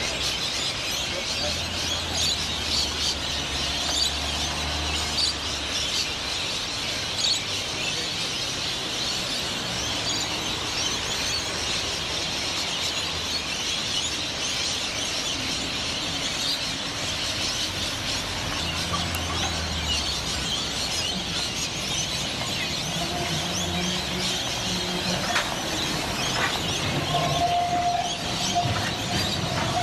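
A flock of birds chattering and chirping without a break, over the low rumble of passing road traffic and trams. In the last few seconds a tram's wheels squeal steadily as it rounds the curved track.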